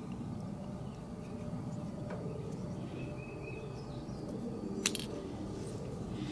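Quiet outdoor background with a faint, short bird trill about three seconds in, and a single sharp click near five seconds as a small plastic piece is fitted onto the throttle lever of a carburetor held in the hands.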